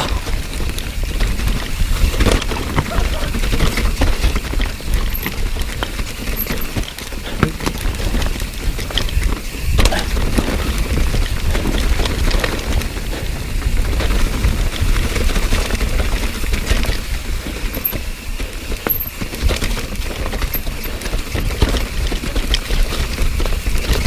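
Mountain bike descending a steep, rocky trail covered in wet leaves: tyres rolling over leaves and rocks and the bike rattling and clattering in a dense run of sharp knocks, over a steady low rumble of wind on the camera microphone.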